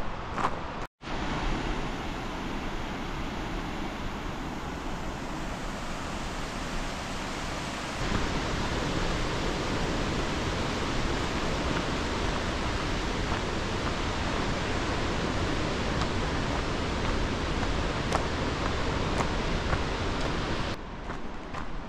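Steady rushing of water, as from a mountain stream or falls. It grows louder about a third of the way through.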